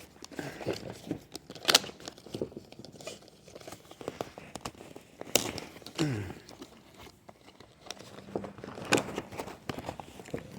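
Rustling and crinkling handling noises, broken by scattered sharp clicks and knocks, as the stripped seat, its cover and pattern material are worked on by hand.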